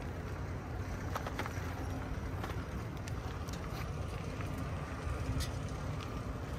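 Steady rush of wind on the microphone and bicycle tyres rolling on an asphalt path during a ride, with a few light scattered clicks and rattles.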